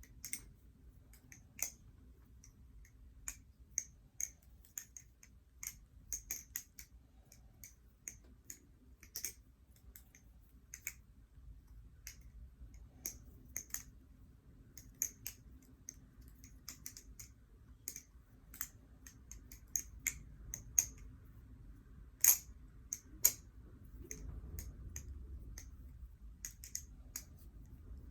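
Theone bamboo-style balisong (butterfly knife) being flipped: irregular sharp clicks as the handles knock against the blade and each other, a few a second, with two louder clacks about two-thirds of the way through.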